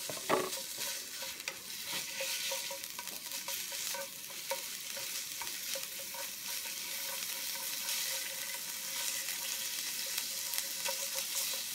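Minced meat sizzling in hot oil in a nonstick frying pan, with light taps and scrapes of wooden cooking chopsticks as it is broken apart. A sharp knock comes just after the start.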